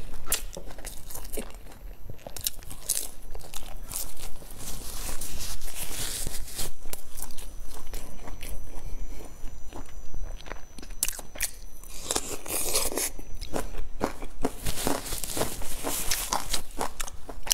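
Close-up chewing and crunching of crispy fried food: irregular crackly bites and chews, with the densest crunching a little past the middle and again near the end.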